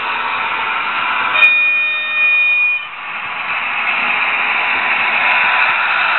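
Trix HO-scale V 100 diesel locomotive model's DCC sound decoder sounding its horn once, about a second and a half in, a single steady tone lasting about a second and a half. A steady hissing running noise surrounds it.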